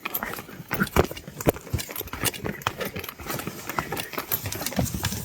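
Footsteps with the irregular knocks, clicks and rattles of packed-up fishing gear being carried while walking.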